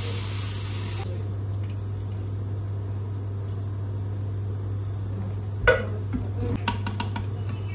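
Cooking clatter at an aluminium pressure-cooker pot as a wooden spoon and a tomato tin are handled in it: one sharp knock against the pot and a few lighter clicks after it, over a steady low hum.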